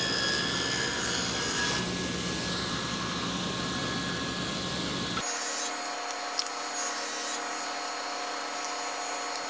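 Table saw running with a 1/8-inch blade, ploughing a shallow groove along cherry boards. It makes a steady motor whine with several fixed tones, and the sound shifts abruptly about halfway through.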